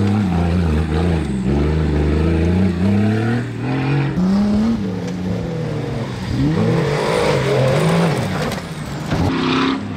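Off-road race car engine revving, its pitch rising and falling repeatedly as it accelerates and backs off.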